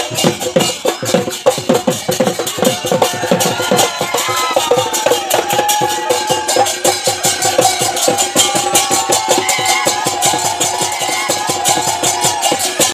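Bihu music: dhol drums beaten in a fast, driving rhythm, with bright clashing strokes over them. From about five seconds in, a high, held melodic line runs over the drumming.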